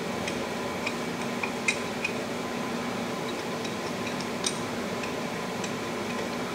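Sparse light metallic clicks and clinks of a knife working at the Babbitt bearing of a Ford Model T connecting rod, trimming off Babbitt left proud by machining, over a steady background hum. The sharpest clicks come about a second and a half in and again past the four-second mark.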